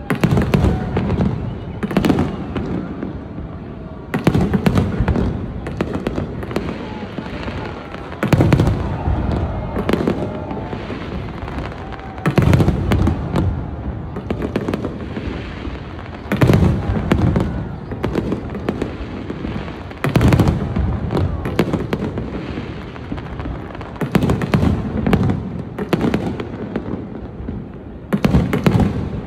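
Aerial firework shells bursting in a rapid sequence, about ten loud booms spaced two to four seconds apart, each followed by crackling as the stars burn out.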